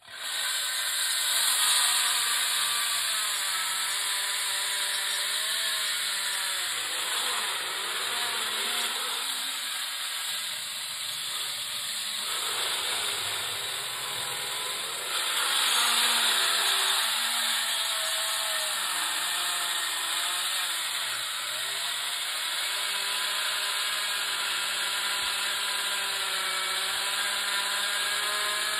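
Hydraulic diamond saw cutting into a concrete foundation wall: a steady, loud grinding noise with a wavering motor whine that shifts in pitch as the blade is loaded, growing louder about halfway through.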